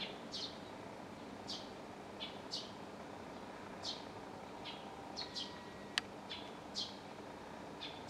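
Eurasian tree sparrow giving short, falling chirps, about a dozen spaced irregularly, over a steady low background hum. A single sharp click about six seconds in.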